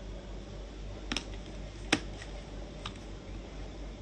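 A few light clicks of small plastic art supplies being handled: three sharp clicks roughly a second apart, the middle one loudest, over a faint steady hum.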